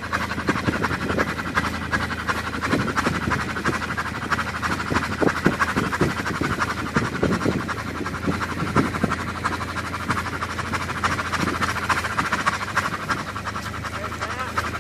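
Allis-Chalmers WC tractor's four-cylinder engine being turned over without firing as the tractor is towed in gear, giving a fast, steady, rhythmic clatter. The engine is being spun to build up oil pressure, with its valve cover off.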